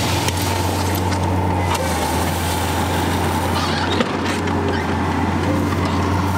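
John Deere compact track loader's diesel engine running with a steady low drone as the machine pushes and spreads a load of gravel road base with its bucket.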